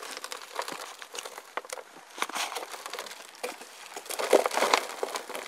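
Irregular crackling and rustling of a plastic nursery pot and potting soil as a hosta's root ball is worked loose, with a louder flurry about four seconds in.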